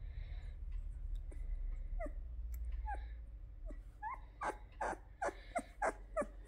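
Labrador Retriever puppy squeaking: short, high squeals that drop in pitch. A few come spaced apart, then about six louder ones follow in quick succession near the end.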